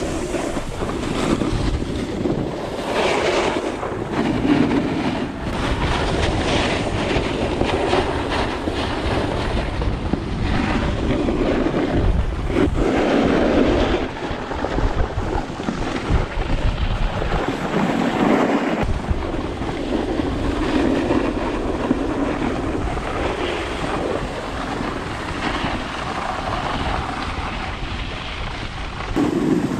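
Snowboard running fast over snow, its edges scraping and hissing as it carves, in surges that swell and ease every few seconds, with a muffled wind rumble on a GoPro microphone under a foam wind cover.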